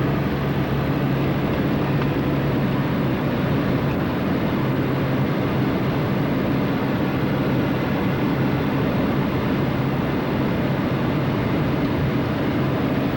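Steady drone of a car driving, engine hum and road noise heard from inside the cabin.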